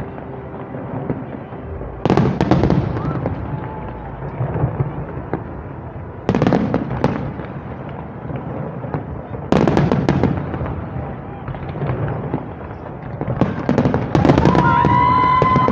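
Fireworks display: a loud burst about every three to four seconds, each trailing off into crackling, then a dense, continuous volley of bangs and crackling near the end.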